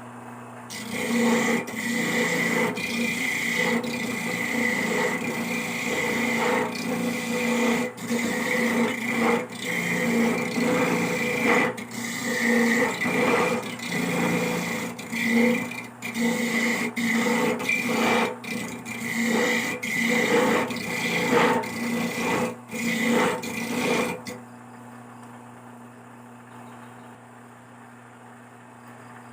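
Coconut being grated on a hand grater, a run of quick rasping strokes that stops about 24 seconds in.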